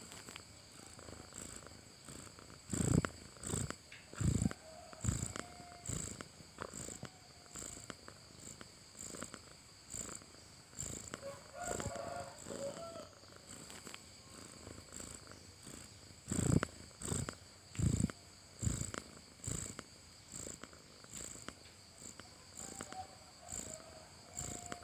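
A cat snoring: a rhythmic low rumble in pulses less than a second apart, louder for a few seconds early on and again past the middle.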